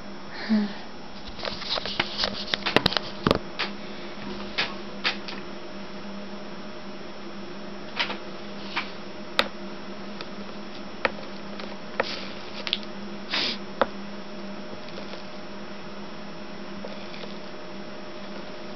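Over a steady low hum, a quick cluster of clicks and knocks in the first few seconds, then scattered single light clicks and taps while an electric soldering iron is worked along the solder seams of a copper-foiled stained glass panel.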